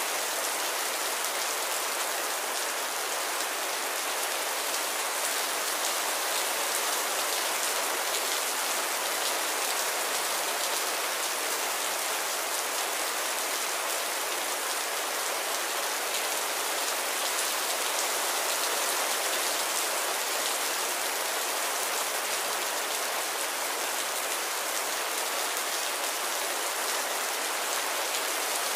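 Heavy rain falling steadily: an even, dense hiss of drops.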